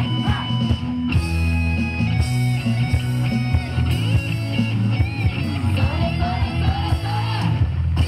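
Loud, upbeat yosakoi dance music with a rock-style band sound, guitar over a steady bass line.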